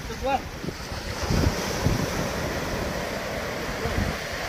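Waves breaking and washing on the shore, with wind buffeting the microphone in low gusts; the surf noise swells about a second in.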